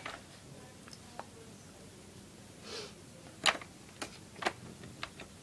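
Hard plastic parts of a Play-Doh cake-making playset being handled and fitted together: a few short sharp clicks and taps, the loudest about three and a half seconds in, followed by several more about half a second apart.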